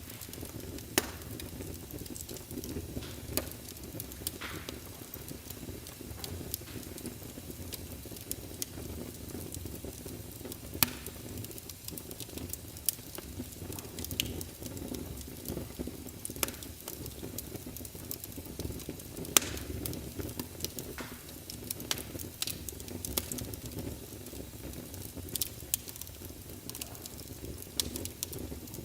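Wood fire burning in a fireplace: a steady low rumble of flames with irregular sharp crackles and pops, a few louder snaps about a second, eleven seconds and nineteen seconds in.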